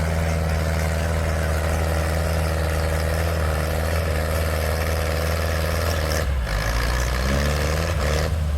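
Antique tractor engine running loud and steady at a tractor pull. About six seconds in its note breaks and shifts, then climbs again near the end.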